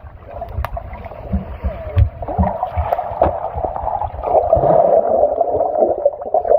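Swimming-pool water gurgling, muffled and dull, with scattered low thumps, as heard through a camera underwater.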